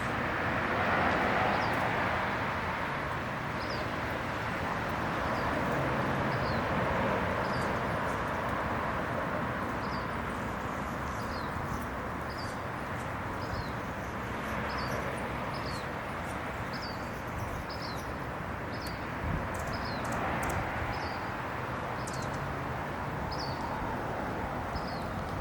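Outdoor ambience: a steady wash of distant traffic noise that swells and eases a few times, with a small bird chirping short high notes about once a second.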